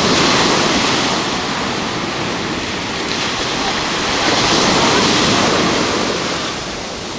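Ocean surf breaking and washing up the shallows of a beach, a steady rushing noise that swells twice, at the start and again about five seconds in.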